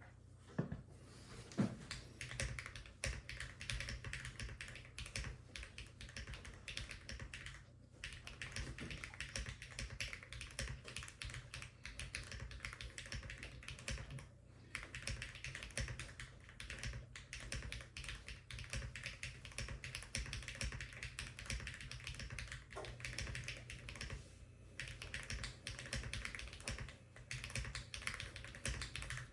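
Lucky65 v2 mechanical keyboard with factory-lubed HMX KD200 switches and no foam in the case, typed on in a fast, continuous stream of keystrokes with a few brief pauses.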